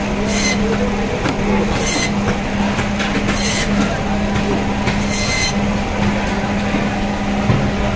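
Electric band saw running with a steady hum while its blade cuts through pangas fish pieces, with a few short hissing bursts about every second and a half as the blade bites into the fish.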